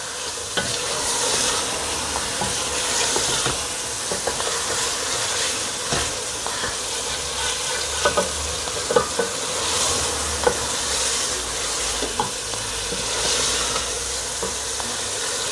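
Chicken curry masala sizzling in oil in an aluminium pot while a wooden spatula stirs and scrapes through it. Scattered light knocks of the spatula against the pot come through the sizzle. This is the bhuna stage, with the chicken frying in the spice paste.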